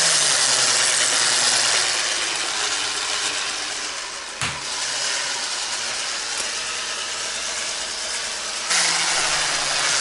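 Electric stick blender with a whisk attachment running steadily, whirring as it whisks cream cheese with powdered sugar in a plastic bowl. There is a sharp click about four and a half seconds in, and the motor hum steps up slightly in pitch near the end.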